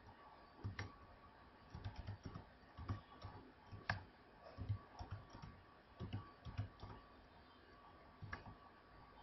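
Faint keystrokes on a computer keyboard: short runs of clicks as words are typed, with pauses between them, the last keypress a little past eight seconds in.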